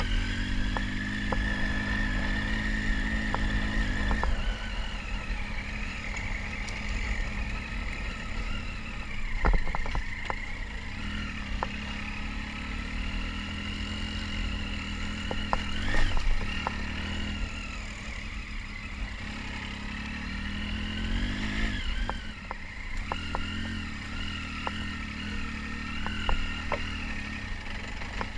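Triumph Tiger 800 XC's three-cylinder engine running at low speed, revs rising and falling with the throttle. A few sharp knocks and rattles come from the bike jolting over the rough track.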